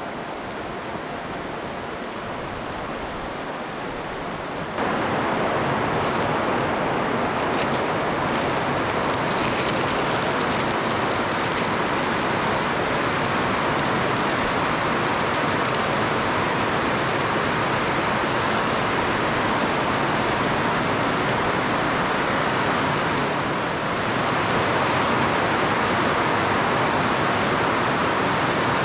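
Steady rushing noise with no tones or rhythm in it, growing suddenly louder about five seconds in.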